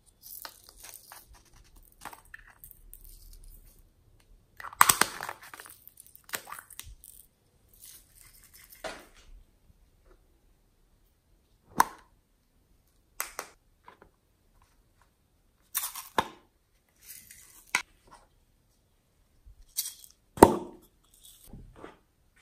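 Small plastic slime containers and their lids being handled and opened: irregular crinkling and crackling with sharp plastic clicks and taps. The loudest come about five seconds in and again near the end.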